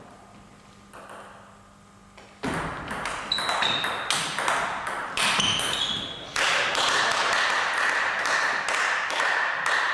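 Table tennis rally: the ball clicking off the bats and the table in quick succession, starting about two and a half seconds in, with a thin steady high tone running through the second half.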